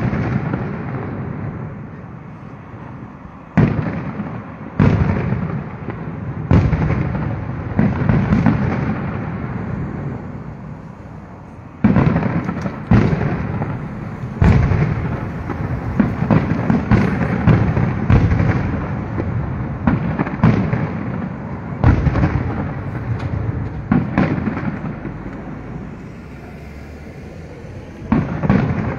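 Aerial firework shells bursting: a string of sharp booms, each trailing off in a long rolling rumble. They come a second or two apart, crowding together with quick cracks in the middle and thinning out towards the end.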